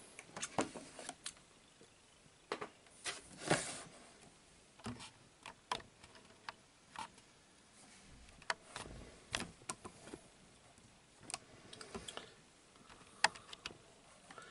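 Brick-built Lego NES console model being handled and shifted on a wooden tabletop: irregular light plastic clicks and knocks, a dozen or so spread through the stretch.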